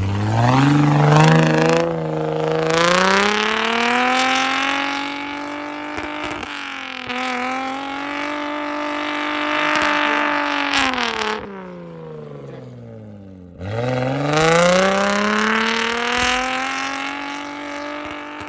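Toyota 2JZ straight-six engine in a Nissan Patrol K160 revving hard under load. Its pitch climbs steeply at the start and holds high, drops away around eleven to thirteen seconds in, then climbs sharply again and holds.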